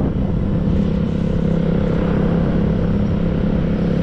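Motorbike engine running at a steady pitch while riding along the road, with wind rumbling on the microphone.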